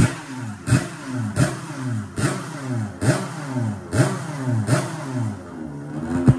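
Yamaha RD 135 single-cylinder two-stroke with crankcase reed induction, kicked over again and again: about eight kicks in quick succession. Each kick gives a sharp pop and a short burst of engine note that falls away, as the methanol-fuelled engine tries to start on its first start but does not keep running.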